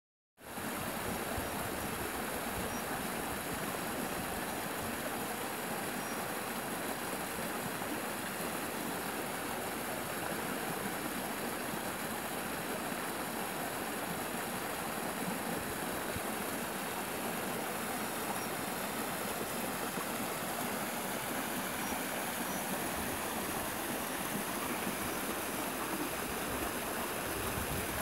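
Small stream pouring over a low stone weir and splashing down over rocks: a steady, even sound of running water.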